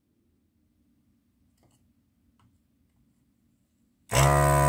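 A few faint ticks, then about four seconds in a handheld vacuum desoldering gun's pump switches on with a loud, steady buzz, sucking molten solder out of a circuit-board joint.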